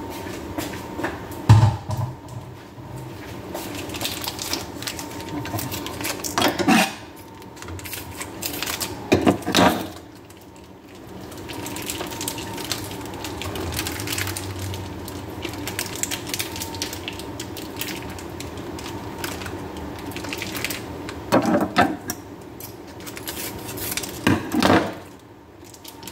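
Kitchen handling sounds: plastic sauce packets crinkling and being snipped open with scissors, and sauce squeezed into a pot. There are a few short sharp noises over a steady background hum.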